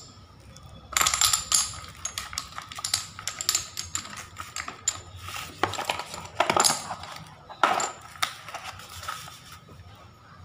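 Glazed ceramic tiles clinking and scraping against each other as they are packed into a cardboard box, with cardboard scuffing and knocking as the lid is closed; several louder knocks in the middle.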